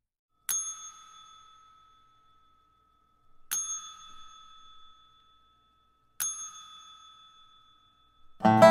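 A small bell struck three times, about three seconds apart, each strike ringing out with a clear high tone for a second or two, as the intro to a song. Acoustic string-band music with guitar starts just before the end.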